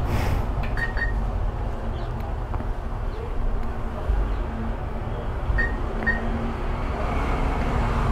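ATM keypad beeping as keys are pressed to enter a one-time passcode: short high beeps, two in quick succession about a second in and two more about five and a half seconds in, over a steady low rumble.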